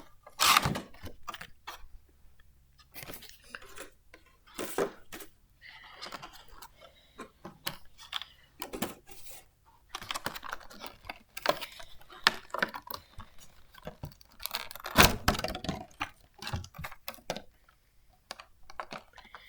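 Cardboard and plastic packaging of a trading card collection box being handled: irregular clicks, taps and short rustles, with one louder knock about fifteen seconds in.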